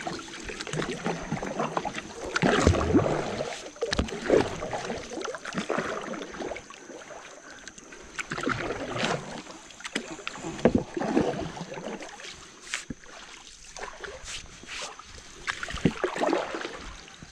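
Paddle strokes in river water beside a small boat: irregular swishes and splashes every second or two, with a few sharp knocks.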